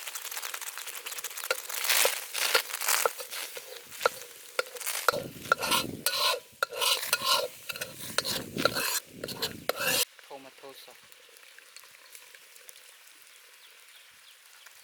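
Chicken feet deep-frying in a pan of oil, sizzling, while a utensil stirs them with frequent clicks and scrapes against the pan. The sound drops off abruptly about ten seconds in, leaving only a faint hiss.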